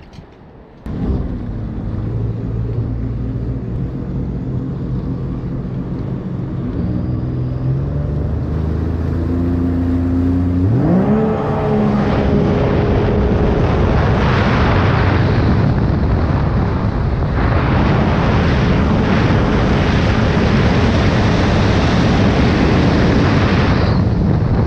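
Sea-Doo RXP-X 300 personal watercraft's supercharged three-cylinder Rotax engine comes in suddenly about a second in and idles steadily. About ten seconds in its pitch rises as it revs up and gets under way, and a loud rush of wind and water runs over the engine from then on.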